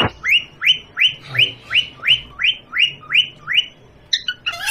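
Pet parrot giving a rapid series of short rising chirps, about three a second, which stop about three and a half seconds in.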